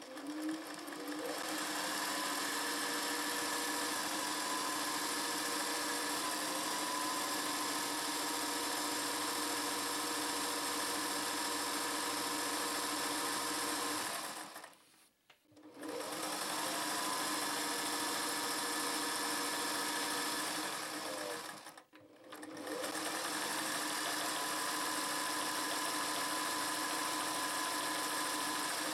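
Singer 401G gear-driven, rotary-hook sewing machine running at a steady speed as it stitches a test seam through fabric, its hum rising in pitch as it winds up at each start. It stops for a second or so about halfway through, starts again, and pauses briefly once more about two-thirds of the way in.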